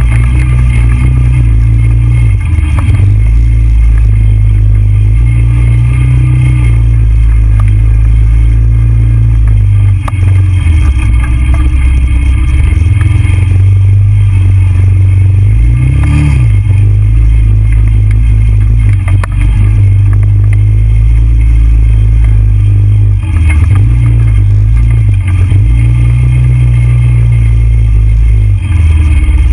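TGB Blade 425 quad's single-cylinder four-stroke engine running under load, its pitch rising and falling with the throttle, with a short rev about halfway.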